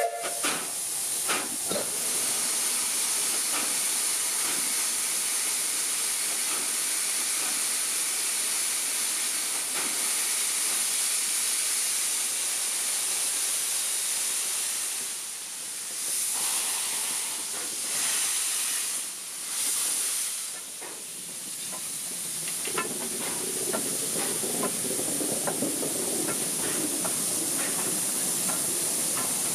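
Narrow-gauge steam locomotive standing with steam hissing steadily from around its cylinders; the hiss drops away briefly twice around the middle. Near the end a lower rumble of the train on the move joins in.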